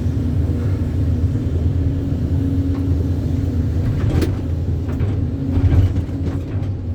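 A vehicle engine running steadily with a low-pitched hum, with a few brief clicks about four seconds in.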